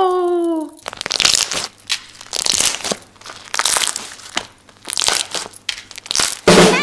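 Slime being squeezed and worked by hand, an irregular run of crackling, popping squelches, several a second. A long held vocal note ends under a second in.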